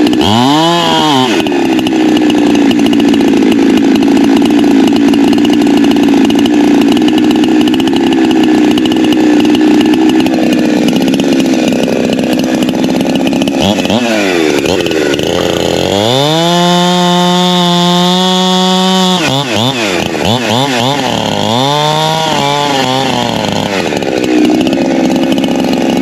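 Holzfforma G372XP Pro two-stroke chainsaw cutting at full throttle, its high engine note steady for about ten seconds. In the second half the pitch drops and it is revved up and down several times between cuts.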